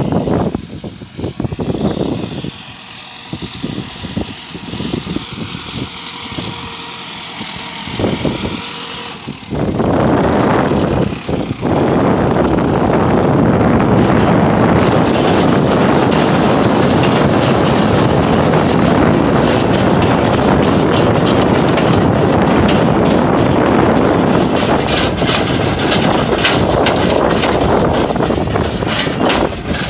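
Tümosan tractor's diesel engine running as it pulls a stone picker across a stony field. For the first ten seconds or so the sound is uneven and gusty; from about ten seconds in it turns loud and steady as the tractor and the working stone picker are close by.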